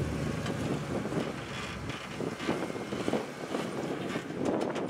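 Rock-crawling Jeep's engine running at low revs as it climbs a rock ledge, with wind buffeting the microphone. The engine sound fades about halfway through, leaving gusty wind noise.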